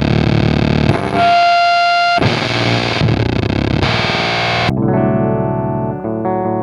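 Fender Jaguar electric guitar through a gnarly, vintage-voiced Soda Meiser-style fuzz pedal: a harsh, noisy wash with a steady high tone held for about a second. Near the end the fuzz cuts off suddenly and clean guitar notes ring out.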